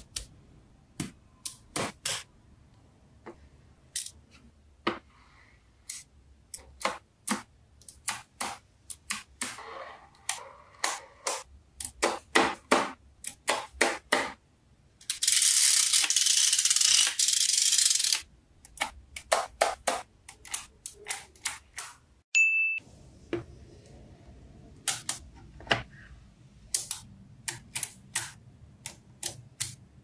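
Small neodymium magnetic balls clicking as they snap onto each other and onto the built wall, a string of sharp irregular clicks. About halfway through a loud steady rasping noise lasts about three seconds, and a short high ding sounds after a brief silence a little later.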